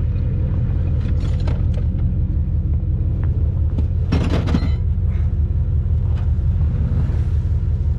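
A vehicle engine idling with a steady low rumble. A few light clicks come about a second in, and a short clatter about four seconds in.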